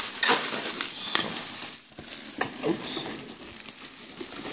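Bubble wrap and a cardboard box being handled by hand: crinkling, rustling plastic and cardboard with a few sharp crackles.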